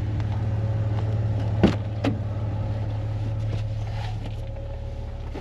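A vehicle engine running steadily at a low, even hum, with two short knocks a little under two seconds in.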